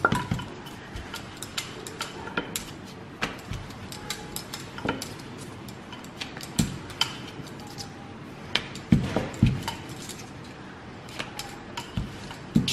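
Wooden rolling pin rolling out chapati dough on a plastic board: irregular light clicks and knocks, with a few louder knocks about nine seconds in.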